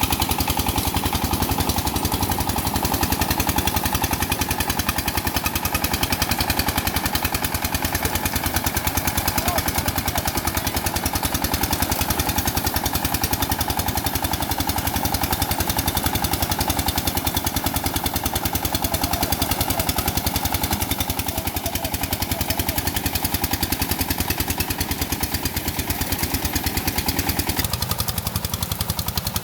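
A small engine running steadily with a rapid, even firing beat. Its sound thins slightly near the end.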